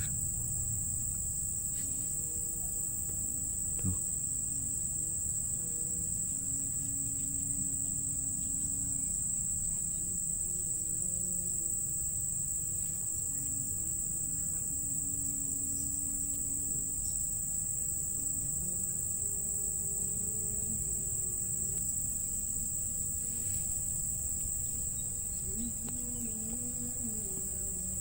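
Insect chorus, such as crickets, making a steady high-pitched drone that never lets up, over a low rumble.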